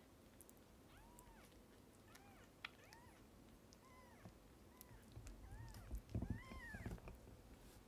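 Newborn kitten mewing: a string of about ten short, thin mews, each rising and falling in pitch. A few low bumps and rustles from handling come about two-thirds of the way through.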